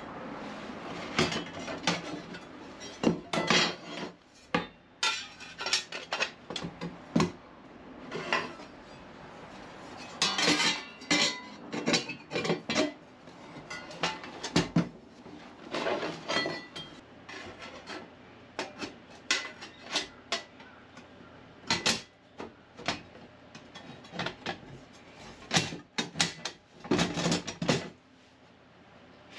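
Cut pieces of 2.3 mm steel plate clanking and knocking against each other as they are handled and fitted together, in irregular single knocks and short rattling clusters.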